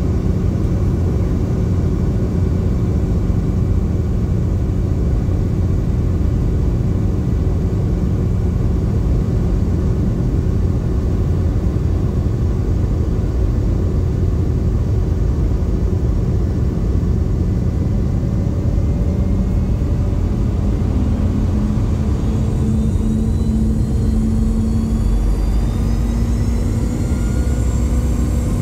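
Rolls-Royce BR715 turbofan of a Boeing 717 heard from inside the cabin right beside the engine: a steady, loud drone with a whine. About two-thirds of the way through, the whine rises in pitch as the engine spools up.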